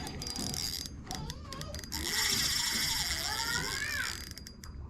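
Fishing reel drag on an ultralight spinning rod ratcheting as a hooked fish pulls out line, loudest in a long run through the middle. A faint voice sounds underneath.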